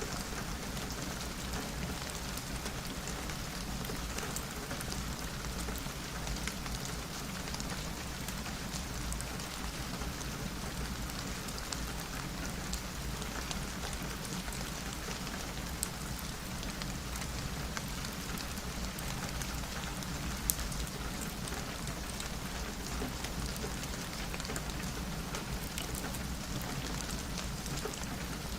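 Steady rain pattering on a window pane, an even hiss of drops with a couple of sharp clicks, one about sixteen seconds in and one about twenty seconds in.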